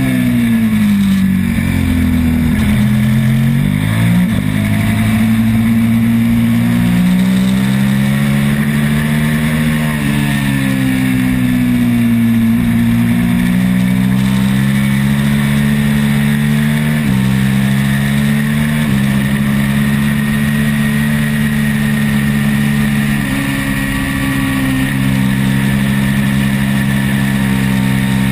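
Twin-cylinder road-racing motorcycle engine at race pace. Its pitch falls as the bike slows for corners, near the start and again about halfway through, and rises as it accelerates, with abrupt steps in pitch at gear changes.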